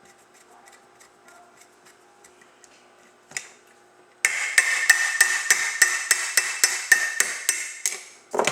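Metal hand tool working on a snowmobile drive clutch's ramp assembly: a few faint ticks, a sharp click about three seconds in, then a quick run of loud metallic clicks for about four seconds as an axle is worked out.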